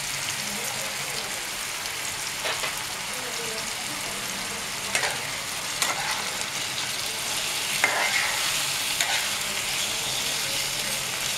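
Prawns frying in oil in a nonstick pan: a steady sizzle, with a few sharp scrapes and taps of a spatula stirring them through the second half.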